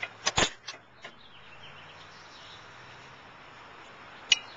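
Sharp clicks and knocks from a disc-brake caliper being unhooked and handled: a quick cluster in the first second and a single click near the end. Faint bird chirps can be heard between them.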